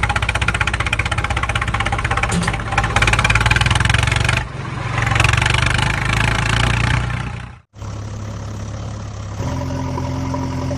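Engine sound effects: an engine running with a fast, even chug, which stops abruptly about seven and a half seconds in and gives way to a steadier engine idle.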